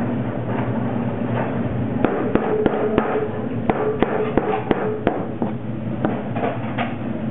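Broad kitchen knife chopping a small octopus into pieces on a plastic cutting board: an irregular run of sharp knocks, several a second, starting about two seconds in, with a few fainter ones near the end.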